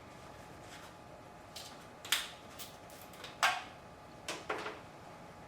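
A few short, light clicks and knocks of bottles and measuring cups being handled and set down on a workbench, the two sharpest about two and three and a half seconds in.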